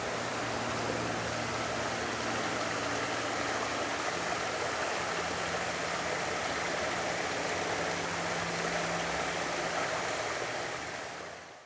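Steady outdoor rushing noise with a faint low hum underneath, fading out near the end.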